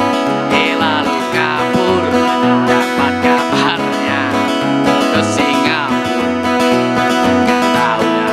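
A Cowboy acoustic guitar strumming a steady rhythm while a mandolin plays a wavering lead melody over it. This is an instrumental passage with no singing.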